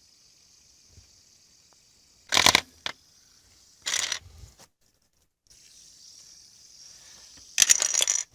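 Plastic Lego bricks clattering as a spinning fidget spinner knocks into a brick wall: three loud rattling bursts, about two seconds in, around four seconds in, and near the end, over a faint steady high hiss.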